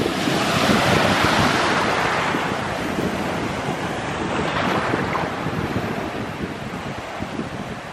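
Small sea waves washing in, one swell of surf about a second in that slowly dies away, with wind buffeting the microphone.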